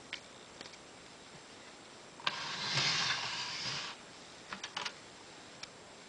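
Light mechanical clicks from an 1892 Empire No. 1 typewriter being handled. In the middle comes a rasping slide of about a second and a half, followed by a quick cluster of clicks.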